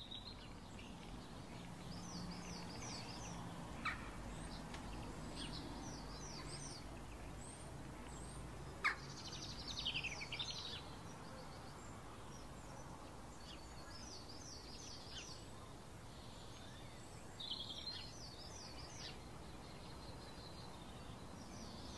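Birds chirping in repeated short phrases over steady, faint outdoor background noise, with a sharper single call about nine seconds in.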